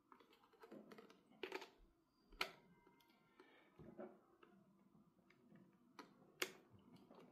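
Faint clicks and taps of a probe cable's jack being fitted into the socket of the Terrascan Ultra's plastic control unit, several separate clicks, the sharpest about two and a half seconds in and again near six and a half seconds.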